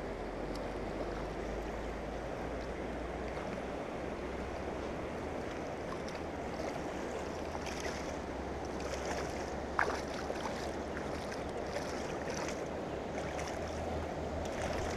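Steady rush of river water at the bank, with splashing in the shallows from about halfway through as a hooked channel catfish thrashes while being landed; one sharp knock about ten seconds in.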